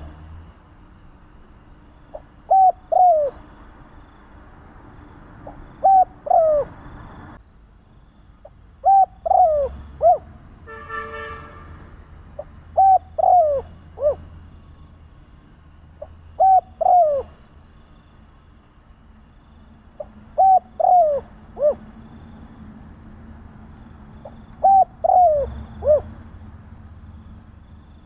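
Spotted dove cooing: a repeated phrase of two or three falling coos, given about every three and a half to four seconds, seven times.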